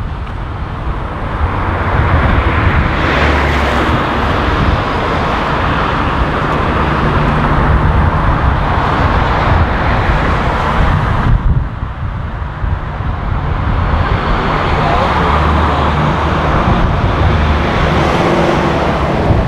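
Road traffic noise: a steady rush of car tyres and engines on a city street. It swells, drops off suddenly about eleven seconds in, then builds again.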